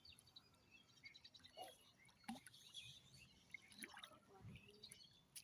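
Faint outdoor quiet with scattered short bird chirps and a few soft clicks.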